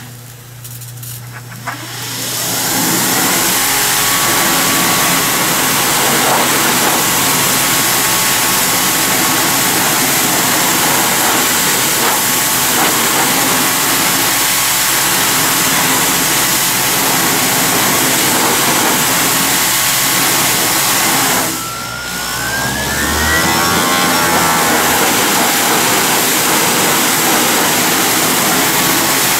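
Greenworks Pro 2200 PSI electric pressure washer spraying deck boards through a 15-degree nozzle: a steady motor hum under the hiss of the water jet striking the wood. It starts up about two seconds in, cuts out briefly a little past twenty seconds, and starts again with a short rising whine as it spins back up.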